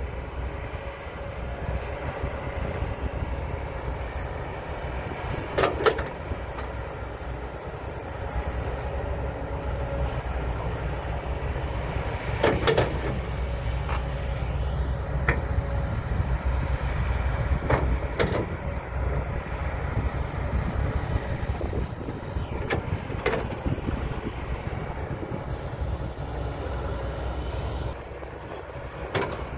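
Kobelco SK200 hydraulic excavator's diesel engine running steadily under load while digging dirt, with a sharp metallic clank of the bucket or boom linkage every few seconds, about six in all.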